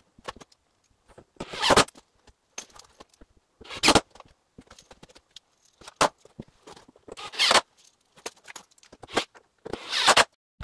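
About five short bursts of metallic jingling and rattling, with small clicks in between, from tools and hardware being handled.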